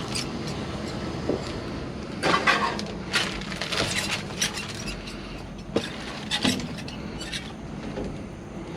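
Discarded items being rummaged through and handled: scattered rustles, clicks and knocks, the busiest stretch a few seconds in, over a steady low rumble.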